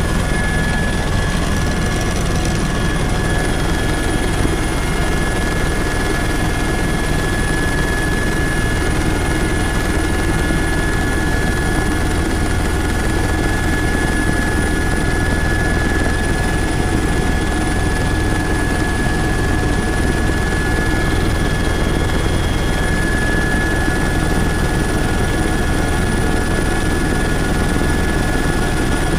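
Helicopter engine and rotors running steadily in flight, heard from inside the cabin: a constant loud din with a steady high whine.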